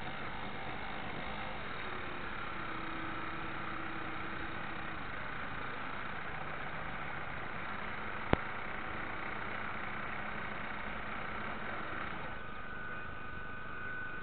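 Radio-controlled scale model destroyer's drive motor running steadily under way, heard from on board the model, with a faint whine that changes pitch near the end. A single sharp click comes about eight seconds in.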